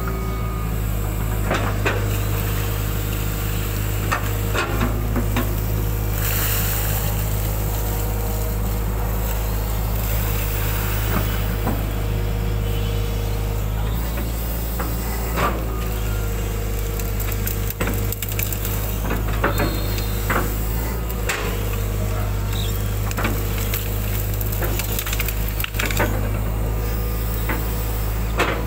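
Hitachi hydraulic excavator running steadily under load, heard from the operator's cab, with irregular knocks and scrapes as its steel bucket digs and drags wet mud and plant debris out of a ditch.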